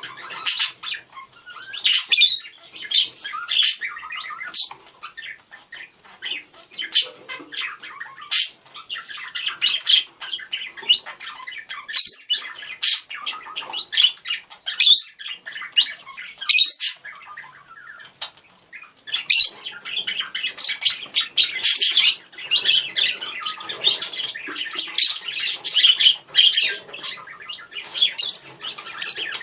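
Budgerigars chattering and calling to each other: a dense run of fast chirps, warbles and sharp squawks, busier near the end.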